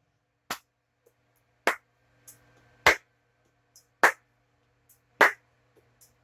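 Sparse music with a slow drum beat: a sharp snare- or clap-like hit about every second, with faint lighter hits between.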